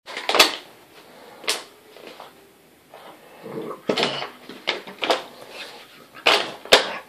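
Plastic drinks bottle crackling and knocking as a puppy bites, paws and shoves it around, in a series of sharp, irregular clicks and thuds.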